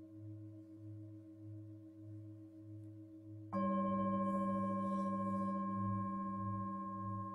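Tibetan singing bowls ringing on, the low tone pulsing in a slow wavering beat; about three and a half seconds in, another bowl is struck with a mallet and rings out suddenly and brightly in several steady tones that then slowly fade.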